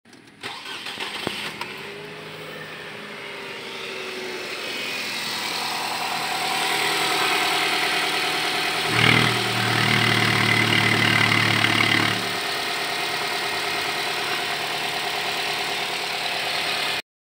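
2014 Nissan X-Trail's 2.0-litre four-cylinder petrol engine starting, then idling steadily, louder for a few seconds in the middle. It runs smoothly with no rough noise, a sign of an engine in sound condition.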